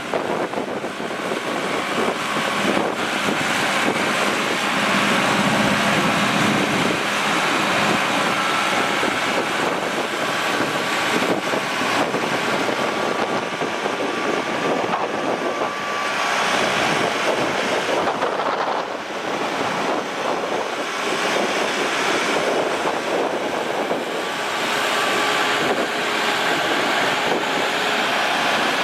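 Case IH Farmall 105U tractor's 4.5-litre four-cylinder turbo diesel running steadily, with wind buffeting the microphone.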